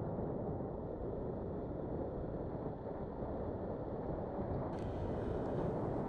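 Steady low rumble of wind buffeting the microphone, with road noise from a moving motorcycle.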